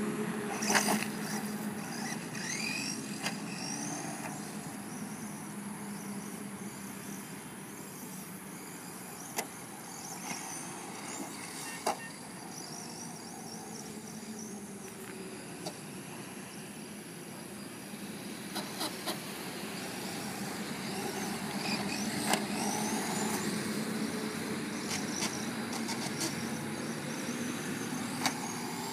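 HPI Bullet MT Flux radio-controlled monster truck run on a 2S LiPo: its brushless motor whines, rising and falling with the throttle, and a few sharp knocks mark landings and impacts. A steady drone of road traffic runs underneath.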